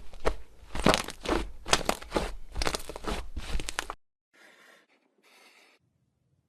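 Slime being squeezed and pressed by hand, giving crunchy crackling and popping sounds several times a second, which stop about four seconds in; two faint short rustles follow.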